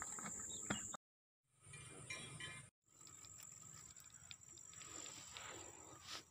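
Insects chirring steadily in a high, thin tone, with faint rustling and small clicks of hands working in dry grass. The sound cuts out for about half a second a second in, and again briefly near three seconds.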